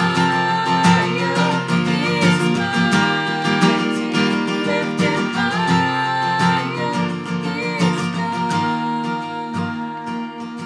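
A woman and a man singing a worship song together over a strummed acoustic guitar, growing quieter toward the end.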